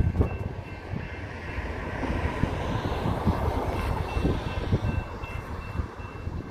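Freight train tank cars rolling slowly past: a low rumble with irregular knocks, and a rushing noise that swells and fades in the middle.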